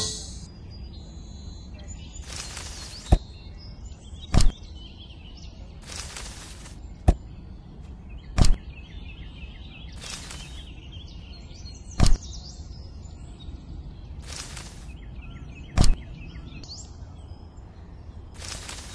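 Light knocks of plastic toy cherries set into a plastic toy train wagon, about six of them, spread out with short rustling noises between. Faint bird chirps in the background.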